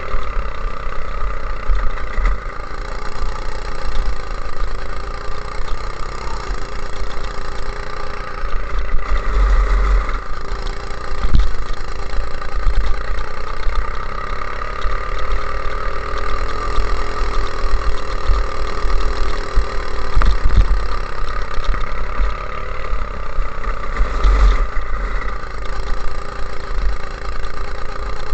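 Go-kart engine running under load on track, its pitch rising and falling with speed through the corners, with several bursts of low rumble from wind on the on-board camera.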